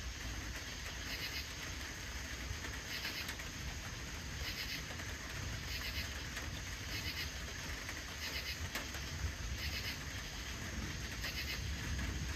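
Crickets chirping: short pulsed chirps repeating roughly every second and a half over a steady low rumble.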